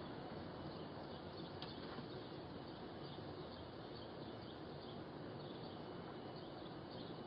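Faint steady outdoor background hiss picked up by a doorbell camera's microphone, with scattered faint high chirps and a single faint click about a second and a half in.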